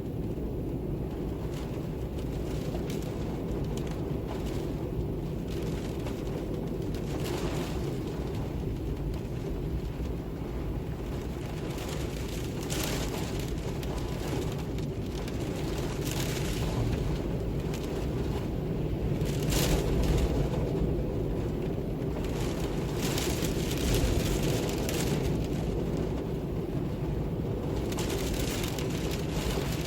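Wind ambience: a steady low rumbling wind with brief hissing gusts every few seconds, swelling a little louder about two-thirds of the way through.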